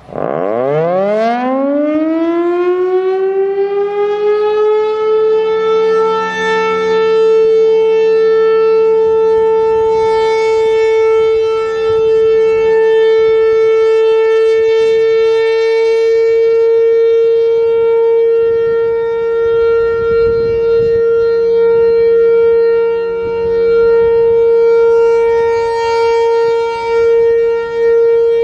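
Federal Signal Thunderbolt 1000 outdoor warning siren winding up, its pitch rising over about five seconds, then holding a loud steady tone: the Alert signal of a weekly test. Its horn slowly rotates.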